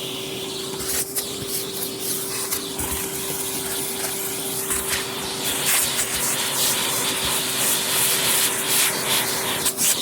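Vacuum cleaner running with a steady motor whine under a rushing hiss of suction, crackling and swelling as the nozzle works over the floor.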